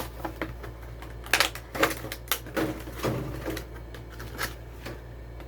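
Plastic blister packaging of a die-cast toy car being pulled and torn open, with irregular crackles and sharp snaps.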